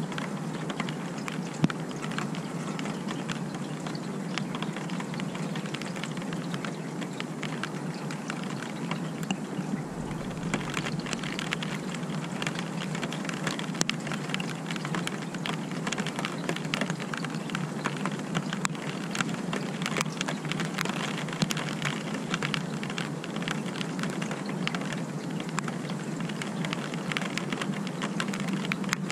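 Steady rain falling, with a dense run of small ticks from drops striking surfaces close by; one sharper tick about a second and a half in.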